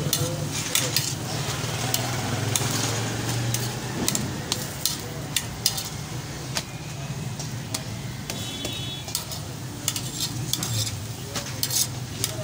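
Lachha parathas sizzling on a large flat griddle, with a metal spatula scraping and clicking against the griddle at irregular moments as the breads are turned and lifted. A steady low hum runs underneath.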